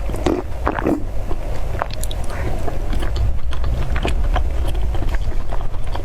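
Close-miked chewing of soft, sticky mochi balls: wet mouth clicks and smacks at irregular intervals, over a steady low rumble.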